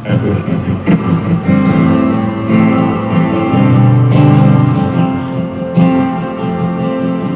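Live guitar strumming chords as the intro of a song, ahead of the vocals.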